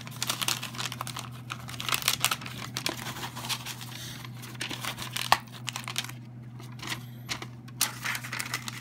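Kraft paper wrapping and cardboard box flaps crinkling and rustling as a box is unpacked by hand, busiest at the start and again near the end. A single sharp click about halfway through.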